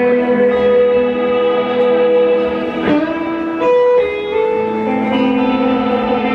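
Live band music led by electric guitars, holding ringing, sustained notes and chords that change pitch several times, with a sharp struck attack about three seconds in.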